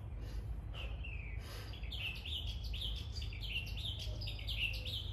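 Small birds chirping, short high notes repeated several times a second and growing busier partway through, over a steady low rumble of street noise.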